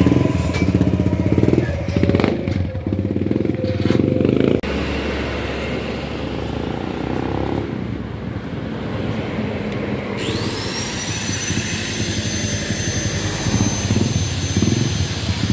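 Yamaha Jupiter Z's single-cylinder four-stroke engine revving in repeated blips through its hollowed-out muffler, a deep bassy exhaust, then running more steadily after about four and a half seconds. A high steady whine rises in about ten seconds in.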